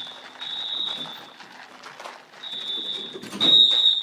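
Edwards 682-1CR mini fire alarm horns sounding the evacuation signal: high-pitched blasts in groups of three, one group ending about a second in and the next starting after a pause of just over a second.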